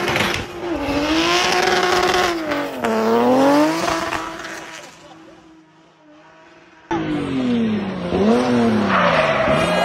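Turbocharged BMW E30 drift car sliding past with the engine revving up and down in quick swings as the throttle is worked, over a hiss of spinning, squealing tyres. The sound dies away around five seconds in. It comes back abruptly about seven seconds in with the engine rising and falling again.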